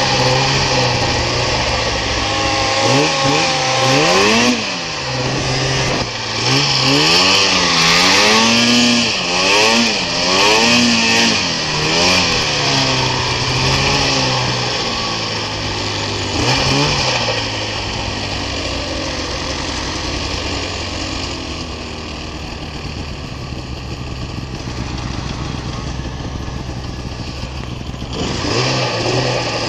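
Snowmobile engine heard from on board the sled, revving up and down again and again through the first half, then running at a steadier speed, with brief revs again at about seventeen seconds and near the end.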